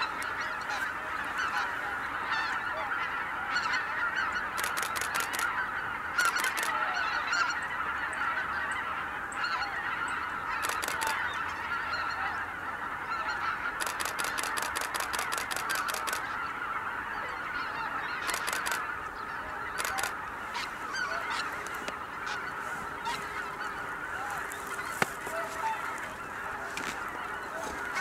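A large flock of greater white-fronted geese calling in flight: a dense, unbroken chorus of many overlapping goose calls. Several short bursts of rapid clicking cut in over it.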